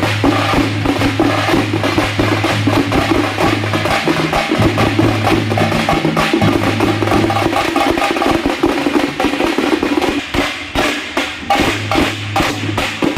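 Loud dance music with fast, busy percussion and a low held note that drops out for a few seconds in the middle and comes back near the end.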